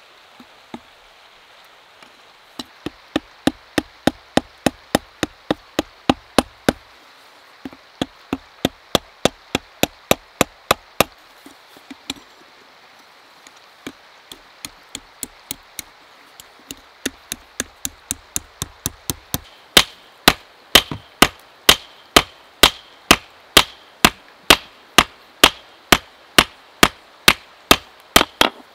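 Hand hammer striking hot mild steel held in tongs on an anvil while forging a belt buckle. The blows come in runs of quick, even, ringing strikes, about two to three a second, with short pauses between runs. The blows in the last third are louder.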